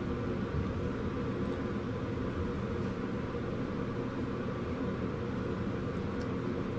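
Steady low background hum of room noise, even and unchanging, with no speech.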